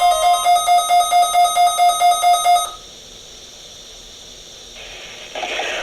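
Midland WR100 weather radio's alert beeping rapidly, about four to five beeps a second, set off by the NOAA Weather Radio warning alarm tone. The steady alarm tone cuts off about half a second in, and the beeping stops after about two and a half seconds, leaving low hiss.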